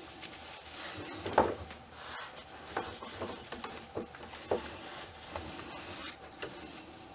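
Cloth rustling as a shirt is worked onto a ball-jointed doll by hand, with several light clicks and taps as the doll is handled, the sharpest about a second and a half in.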